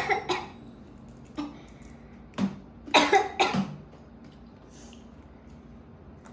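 A person coughing in a run of short, harsh coughs over the first four seconds, then stopping: coughing from the burn of an extremely hot chili chip.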